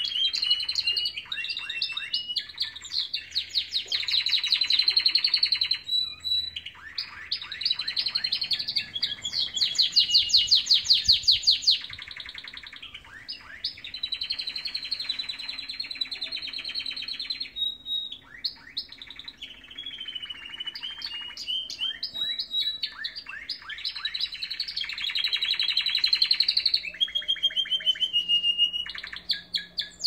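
Domestic canaries singing: a long, continuous song of rapid trills and fast repeated-note phrases, each held for a second or two before switching to the next, with brief pauses between passages.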